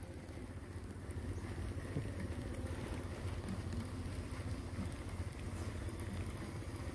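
A steady low rumble with no distinct events, much quieter than the talk around it.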